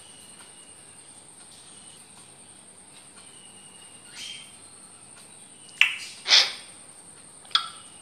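African grey parrot making a few short, sharp calls in the second half, the loudest about six seconds in, over a steady high-pitched background tone.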